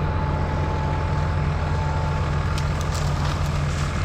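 Tractor diesel engine running steadily at a low, even speed, with a few faint clicks near the end.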